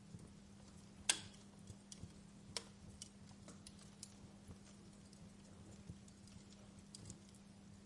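Wood fire crackling: sparse, faint pops and snaps from burning logs, the sharpest a little over a second in, over a faint steady low hum.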